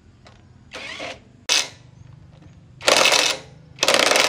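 Hitachi cordless impact wrench hammering on a bolt of a 15 hp diesel engine in a few short bursts, the two loudest, each about half a second, near the end.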